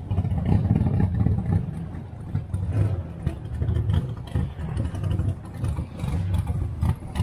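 Cars' engines idling at the drag strip starting line, heard as a low, uneven rumble.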